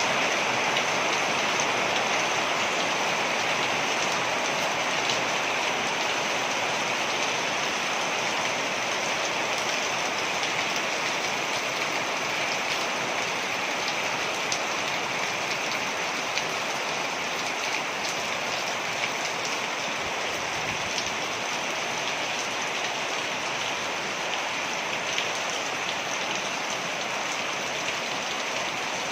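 Waterfall: water falling and splashing steadily, with small drops spattering through it.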